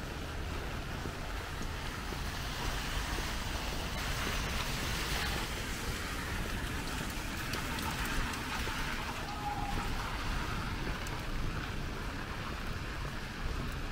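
Rainy city street sounds: steady rain and traffic noise on wet roads, with the tyre hiss of a passing vehicle swelling and fading about four to nine seconds in.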